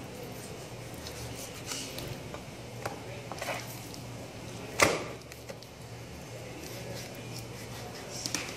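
Boning knife cutting raw chicken against a plastic cutting board, with small clicks and taps, and one loud slap of the meat on the board about five seconds in. A low steady hum runs underneath.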